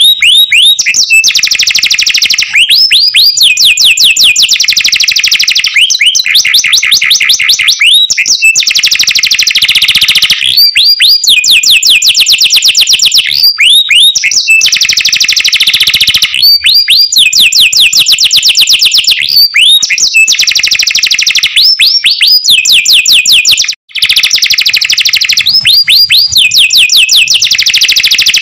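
Domestic canary singing a loud, high-pitched song of rapid trills, one phrase of fast repeated notes after another, with quick rising chirps where the phrases change. The song drops out for an instant about 24 seconds in.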